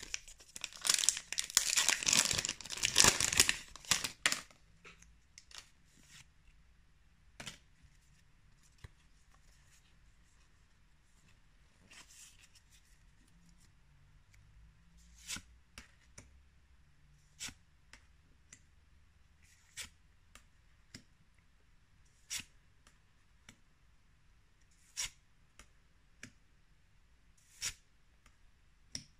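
A Pokémon Vivid Voltage booster pack's foil wrapper being torn open and crinkled for about four seconds. Then come short, sharp clicks every couple of seconds as the trading cards are flicked one behind another.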